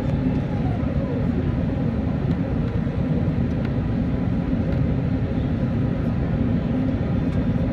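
Steady cabin noise inside an Airbus A380 on approach: a low rumble of engines and rushing air, with a few faint steady tones over it.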